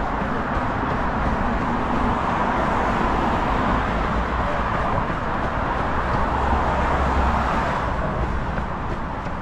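Steady rushing noise of wind and road traffic on an open bridge, picked up by a runner's moving camera.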